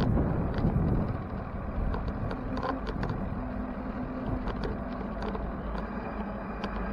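Wind rumbling on the microphone of a moving bicycle, easing about a second in. After that comes steady city street traffic noise with a faint low hum and scattered light ticks.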